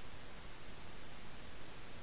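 Steady hiss of recording noise with a faint high whine, and no distinct sound events.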